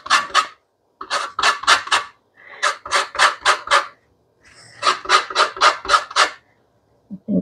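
Lime rind being grated on a metal box grater: quick rasping strokes, about four or five a second, in four runs with short pauses between them.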